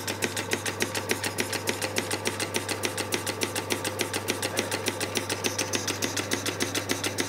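Scratch-built model column mill engine running at a steady speed, driving a model printing press: a rapid, even beat of short clicks with no change in pace.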